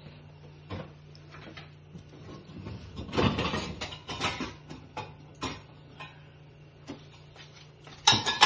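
Kitchen handling sounds: scattered knocks, clicks and clatter as things are moved about and cabinets handled. The busiest rattling comes about three seconds in, and there are sharp knocks near the end, over a steady low hum.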